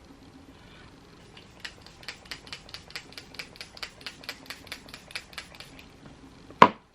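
Rapid, even clicking, about five clicks a second for several seconds, from a setting spray bottle being worked after it misfired. Near the end comes one short, loud spray burst.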